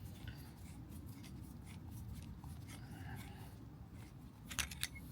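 Faint rubbing and scraping of metal parts being handled, as a brass compression nut is worked off a copper pipe, with a few sharp clicks near the end.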